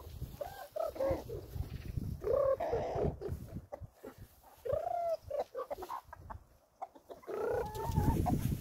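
A flock of chickens clucking and calling while they peck at scattered feed. The calls come in short groups, roughly every two to three seconds.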